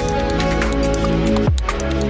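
Electronic background music with a steady beat: sustained synth chords, ticking hi-hats, and a deep bass hit that drops in pitch about one and a half seconds in.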